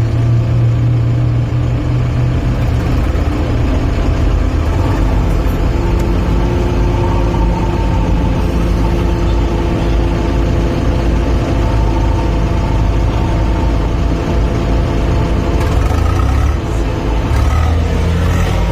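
Heavy diesel engine of an earthmoving machine running steadily under load, a deep hum whose pitch shifts slightly a few times.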